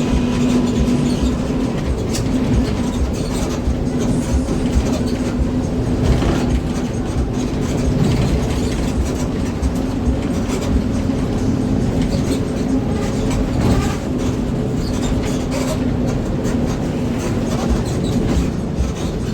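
Rear-engined coach's engine and growling ('ngorok') racing exhaust, heard from the back seat inside the cabin while the bus is under way: a loud, steady drone over a dense low rumble.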